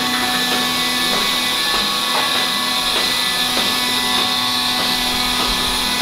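Steady machinery noise in a barn: a constant hum under an even hiss, with no change in level.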